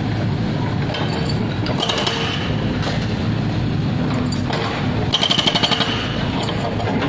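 Excavator diesel engines running steadily while broken asphalt is dug and loaded into a dump truck, with scraping and clattering of debris. A fast rattling burst comes about five seconds in.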